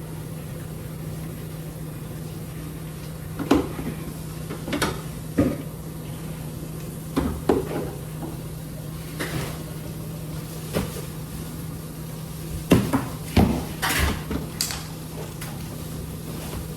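Knocks and clunks, about a dozen scattered, of containers, bottles and drawers being handled while a refrigerator is cleaned out and reorganized, over a steady low hum.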